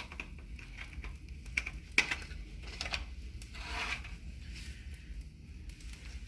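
Vine-wood fire in a fireplace crackling, with sparse irregular pops and clicks over a steady low hum.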